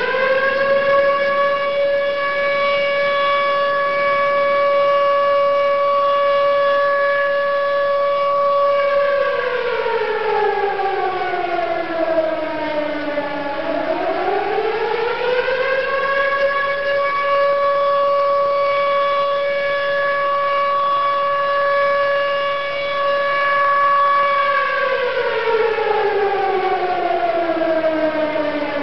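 A siren wailing in long, slow cycles: it holds one steady tone, slides down in pitch about a third of the way in, climbs back to the same tone and holds, then slides down again near the end.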